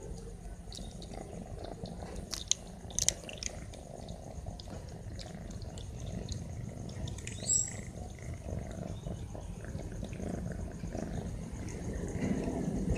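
Kitten eating dry cat kibble: scattered small sharp crunches over a steady low background rumble, with a brief rising high chirp about seven and a half seconds in.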